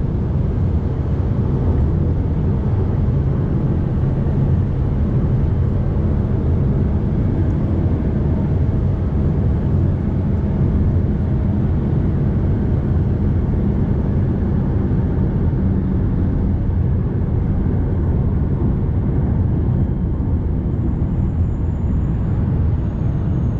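Fiat Toro Volcano's four-cylinder turbodiesel pickup cruising steadily on the road: a continuous low engine and road noise that holds level throughout.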